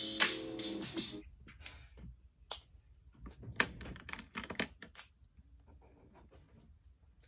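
Background music that stops about a second in, then a scatter of sharp clicks and taps as markers and their caps are picked up, handled and set down on a desk.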